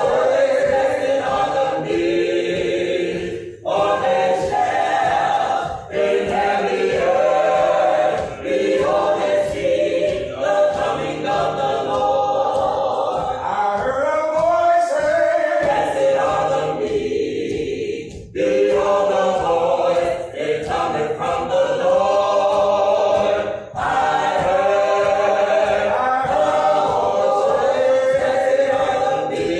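A choir singing a cappella gospel, many voices in phrases with short breath pauses between them.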